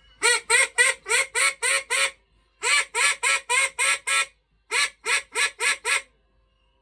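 A duck quacking sound effect: rapid runs of nasal quacks in three bursts, about seven, then six, then five calls.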